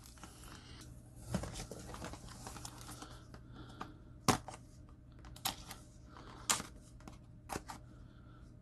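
Hands handling small cardboard knife boxes and their plastic wrapping: soft rustling broken by sharp clicks and taps, the loudest about four seconds in and the rest about a second apart.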